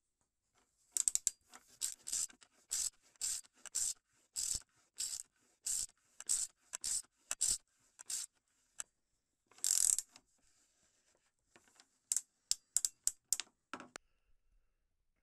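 Ratcheting combination wrench clicking in a run of short strokes, about one and a half a second. A longer stroke comes about ten seconds in, then a quicker run of clicks near the end.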